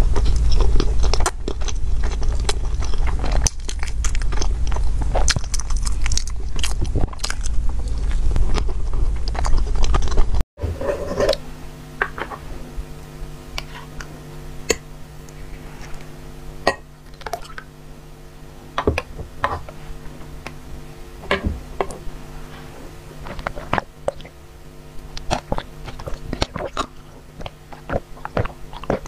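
Close-miked eating: biting and chewing soft bread over a heavy low rumble, then after a sudden cut about ten seconds in, quieter, scattered mouth and eating clicks over a steady low hum.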